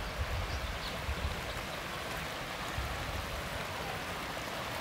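Steady hiss of water.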